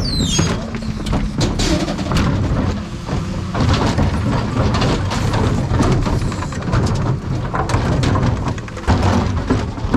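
Rear bin lifts of a Dennis Eagle Elite 6 refuse truck raising and tipping garden-waste wheelie bins: a dense clatter of waste tumbling out and plastic bins knocking, over the steady hum of the truck's engine and hydraulics. A short falling squeal sounds right at the start.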